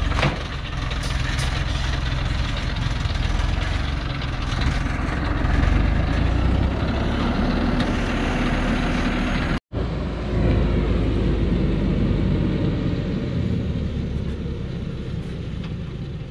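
Engine of a loaded log truck under load as it climbs a muddy slope. The sound drops out for an instant about ten seconds in, then fades gradually toward the end.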